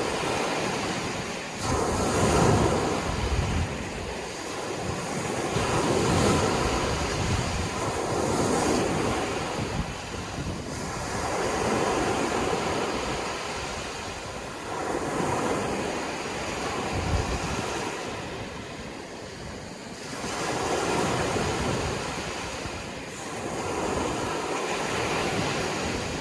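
Sea waves breaking and washing on the shore, the surf rising and falling again every few seconds.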